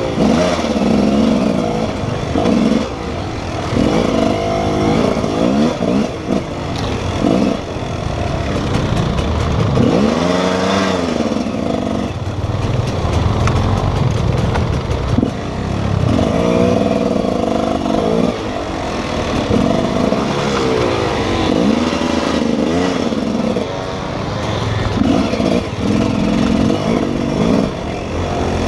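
Enduro motorcycle engine heard from on the bike, revving up and down over and over as the throttle is worked along a twisty forest trail, with rattling from the bike.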